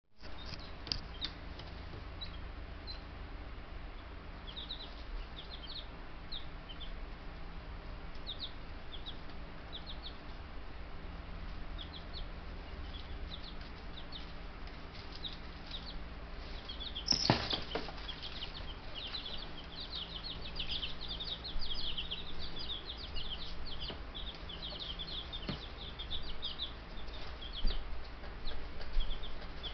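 Buff Brahma chicks peeping: short high chirps, scattered at first and then coming thick and fast in the second half, over a steady low hum. A brief louder sound cuts through about seventeen seconds in.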